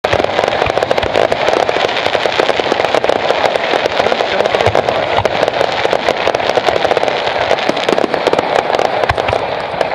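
Aerial fireworks bursting in a rapid barrage: a dense, unbroken crackle of many small pops and bangs.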